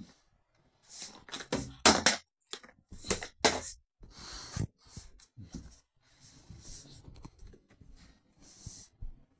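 Handling noise: a quick run of clicks, knocks and rustles, busiest and loudest about two seconds in, then softer rustling toward the end.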